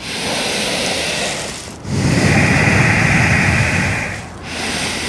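Deep audible breathing held in a yoga pose: a long breath, then a longer, louder one starting about two seconds in, and the next breath beginning near the end.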